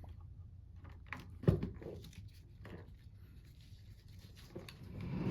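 A few light clicks and knocks from hands handling the wiring and plug connector on the pump's power plate, the sharpest about a second and a half in.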